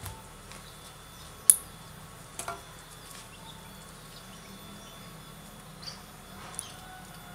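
Soil being dug and handled at a small hole: a sharp click about a second and a half in, then a few softer knocks and scrapes. Under it runs a faint, steady insect buzz.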